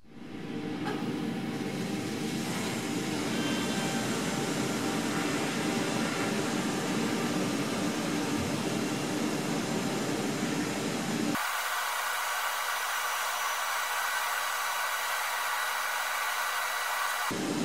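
Abrasive blasting in a blast cabinet: a steady rushing hiss of air and grit from the blast gun as it strips paint off aluminium parts, with the compressor run at reduced pressure. About two thirds through, the lower rushing part drops out abruptly, leaving a thinner, higher hiss, and it comes back just before the end.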